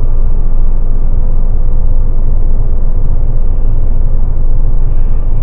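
Steady low rumble of road and wind noise inside a Mercedes-Benz cruising at highway speed.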